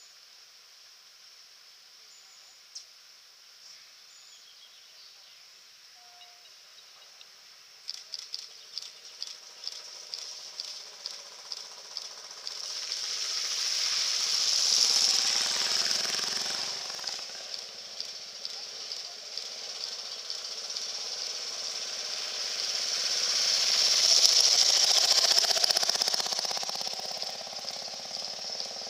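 Shallow ford water trickling. From about eight seconds in, a classic motorcycle engine is heard approaching with a steady run of ticks, and the bike splashes through the ford with a loud hiss of spray peaking about halfway through. A second, similar swell of engine and splashing builds near the end.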